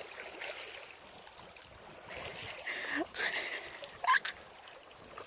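Small waves lapping on a lakeshore, with a brief faint voice-like sound about three seconds in and again near the end.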